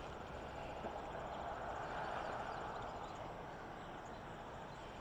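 Outdoor ambience: a steady wash of noise that swells slightly and fades about two seconds in, with a faint rapid insect trill high above it.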